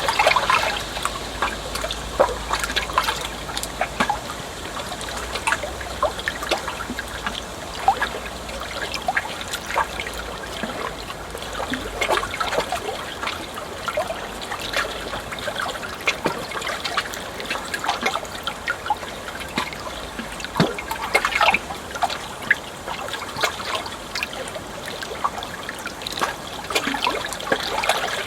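Water trickling and splashing steadily, a continuous run of small irregular splashes and gurgles.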